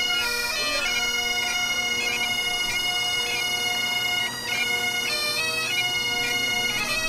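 Bagpipes playing a tune, the chanter's melody moving from note to note over the steady, unbroken drone.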